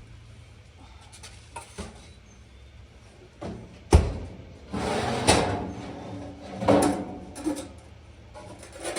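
A sharp knock about four seconds in, then scraping, sliding and rattling as metal stove parts are handled, with a few more clanks.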